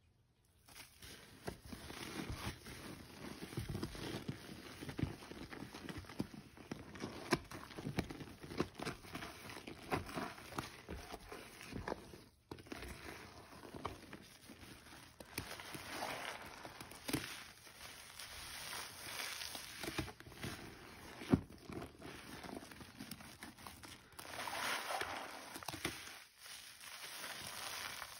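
Soapy sponges being squeezed by hand over and over: wet squishing and the crackle of foam, with brief breaks about twelve seconds in and near the end.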